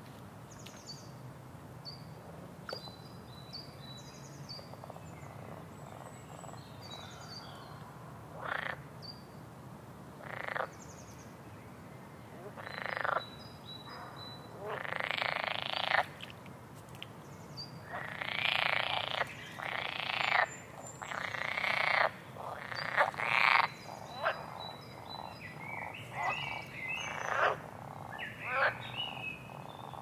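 Frogs croaking: single croaks from about a third of the way in, coming more often and louder in the second half, with faint short high chirps earlier.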